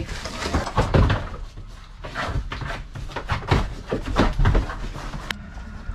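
Irregular knocks, clatters and rustling inside a plywood-lined step van as goats step about on a tarp-covered floor and a wire cattle panel is handled.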